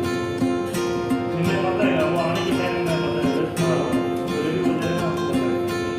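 Background music with plucked, strummed guitar.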